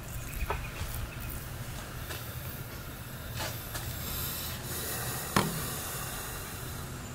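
Knife and hands working raw beef strips on a wooden cutting board: a few light taps and clicks, with one sharper tap about five seconds in, over a steady low background hum.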